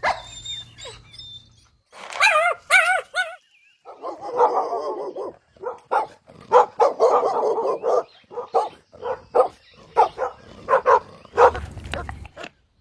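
Puppies whining, yipping and barking: a wavering whine about two seconds in, then a run of short barks and yips.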